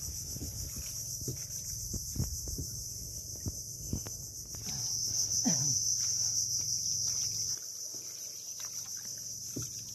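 Chorus of insects in the shoreline trees: a steady, high, pulsing buzz that swells louder for a few seconds in the middle. Soft knocks are scattered beneath it.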